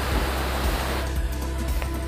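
Rushing stream and waterfall water over background music with a steady low beat. About a second in, the water's hiss drops off suddenly to a fainter rush while the music carries on.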